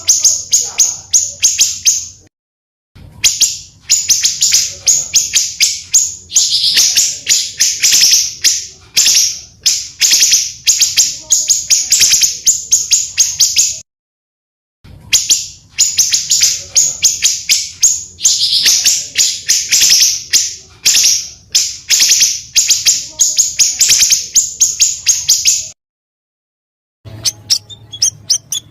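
Small songbirds singing in long rolls of rapid, harsh repeated notes. It is a recorded song track that breaks off into about a second of silence twice and then starts again, roughly every twelve seconds.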